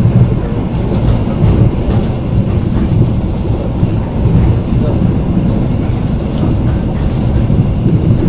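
Train running along the rails with a steady, loud, deep rumble and faint irregular clicks from the wheels.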